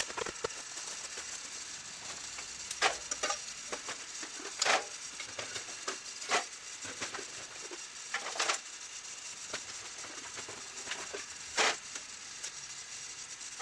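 A steady hiss, broken by about six short crunching and scraping sounds of someone walking about and handling cans and gear.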